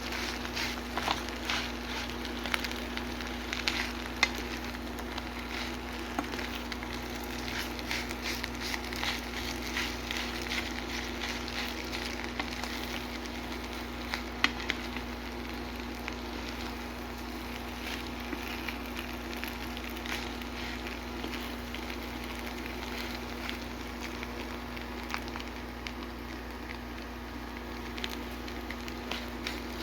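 Egg fried rice sizzling and crackling in a hot pan, the crackle thinning out after about the middle, with a few sharp clicks. A steady low hum runs underneath.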